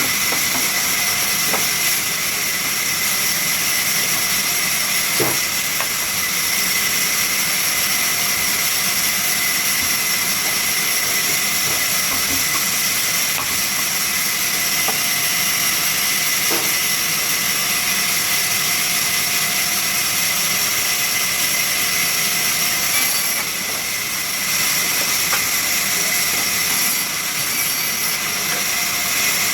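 Sawmill saw machine running: a loud, steady high hiss with a constant high whine, and a few faint knocks.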